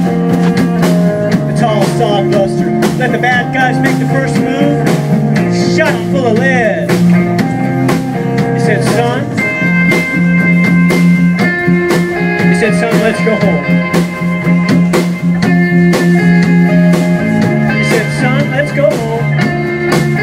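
Live rock band playing an instrumental passage: electric guitars over a drum kit. A lead line bends and wavers through its notes for the first half, then holds long steady notes from about halfway in.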